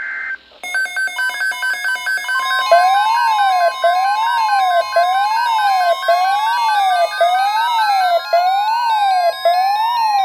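Weather-radio emergency alert tones: a burst of SAME data tones ends just after the start. An electronic alarm then begins: rapid beeping, a steady attention tone coming in after about two seconds, and a siren-like tone sweeping up and down about once a second.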